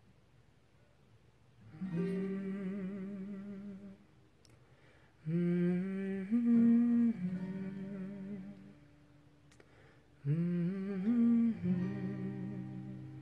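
A man humming a slow wordless melody in three long phrases, with acoustic guitar notes ringing underneath.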